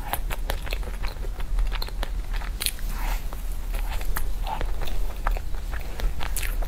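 A person biting and chewing a chocolate-topped pastry: irregular crackles and crunches with each bite and chew.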